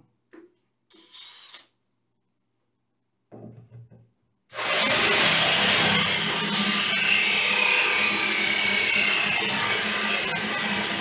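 A DeWalt cordless drill starts about four and a half seconds in and runs steadily, grinding into the ceramic wall tile. A few faint knocks come before it.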